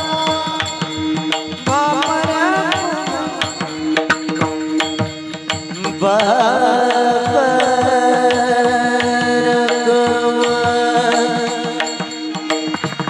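Marathi devotional abhang sung by a male voice in a melismatic line over a steady held drone and regular hand-drum strokes. The singing swells louder and fuller about halfway through.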